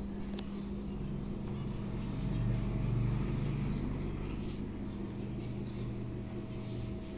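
Faint, scattered chirps of small cage birds over a steady low hum, with a low rumble that swells and fades about two to four seconds in, and a single sharp click near the start.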